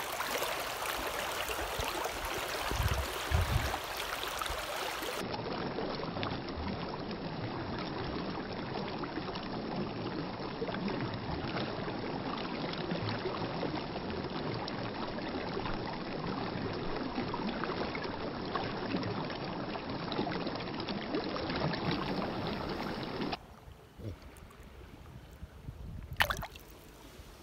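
Shallow river current running over rocks, a steady rush of water, with a few low bumps about three seconds in. Near the end it drops much quieter, and one short sharp click follows.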